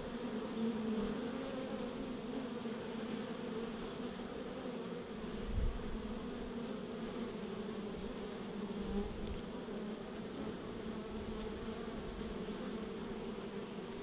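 Honeybees buzzing at a hive entrance: a steady, even hum of many bees, with a brief low bump a little before halfway through.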